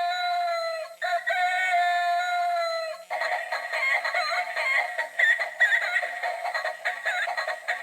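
Electronic singing chicken toy playing through its small, thin-sounding speaker: two long held high notes, then a fast warbling high-pitched singing voice from about three seconds in.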